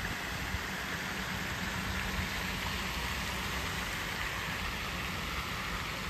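Water spray from a lake fountain splashing onto the water surface, a steady hiss.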